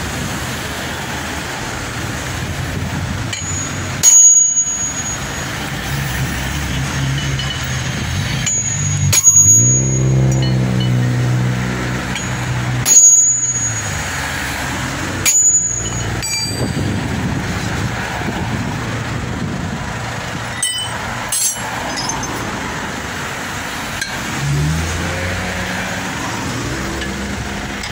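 Hammer blows on a steel drift held against a car's wheel hub: about half a dozen sharp, ringing metal strikes a few seconds apart, over steady road traffic. A vehicle's engine passes about nine seconds in.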